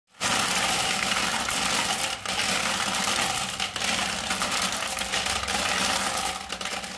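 Many glass marbles rattling and clicking continuously as they pour out of a Bruder Scania toy cement mixer truck, down its plastic chute and onto a pile of marbles.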